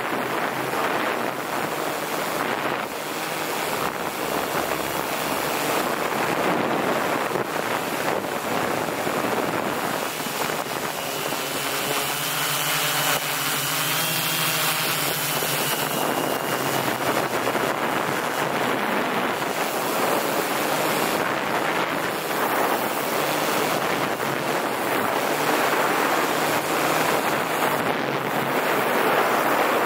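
M690L drone in flight: a steady rush of propeller noise and wind, with a thin whine and a low hum rising out of it for a few seconds about halfway through.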